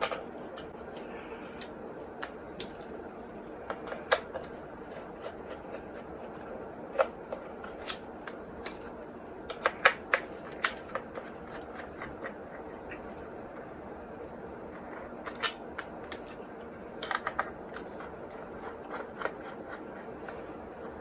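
Scattered small clicks, ticks and scrapes of hands working at the plastic case of a Sinclair FTV1 pocket TV, trying to get its cover off, with a cluster of sharper clicks about ten seconds in. A steady faint hum runs underneath.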